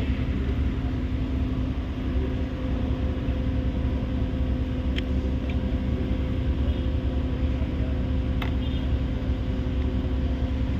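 Steady low mechanical hum with a constant tone, and two faint light clicks about five and eight and a half seconds in as a small Allen key works the airbag's release clips.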